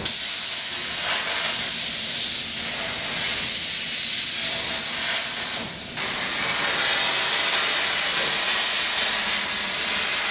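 CNC plasma cutter's torch hissing steadily as the arc cuts through steel sheet. The hiss dips briefly a little over halfway through.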